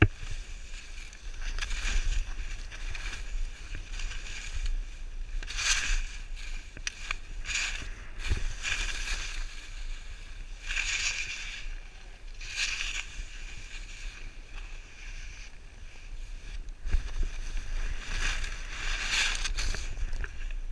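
Skis hissing and scraping over snow, swelling with each turn, over a steady rumble of wind on the microphone.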